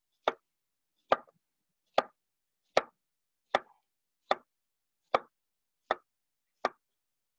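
Chef's knife slicing through a star fruit and knocking on a wooden cutting board: nine sharp, even chops, just under a second apart.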